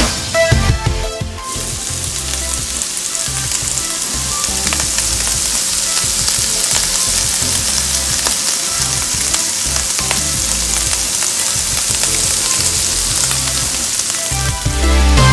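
Chopped onion and bell peppers sautéing in a nonstick frying pan, sizzling steadily.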